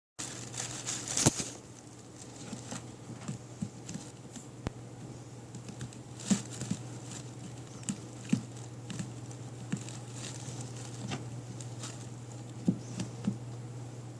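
Hiccups: short, sharp hics repeating at irregular intervals, some in quick pairs or threes, over a steady low hum.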